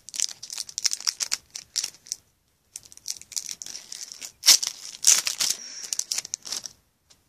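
Foil wrapper of a Match Attax trading-card pack crinkling and tearing as it is handled and ripped open, in two spells of crackly rustling with a short pause between them; the loudest rips come about halfway through, and it stops about half a second before the end.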